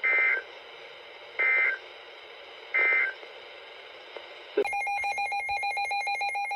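Emergency Alert System end-of-message data tones: three short, shrill two-tone bursts about 1.4 s apart over a steady hiss. About 4.6 s in, a buzzing, rapidly pulsing signal made of several tones at once starts up.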